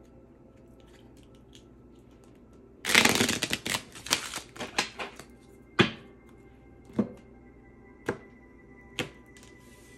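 A deck of cards being shuffled by hand, a rapid flurry of clicks lasting about two seconds. Then four single sharp taps about a second apart as the deck and cards knock against a wooden table. Faint background music underneath.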